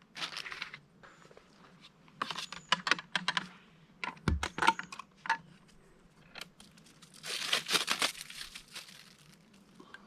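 Plastic packaging wrap being torn and crumpled off a bike part in several short spells, with light clicks and knocks from the part being handled.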